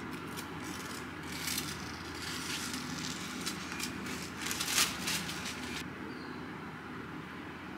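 Rustling and crinkling of the protective paper sheet being peeled off a new MacBook Pro's keyboard, with a few sharper crackles, stopping suddenly about six seconds in.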